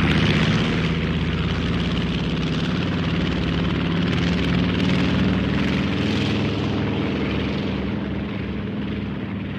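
Propeller plane's piston engine running steadily in flight, a continuous drone that slowly fades away near the end as the plane recedes.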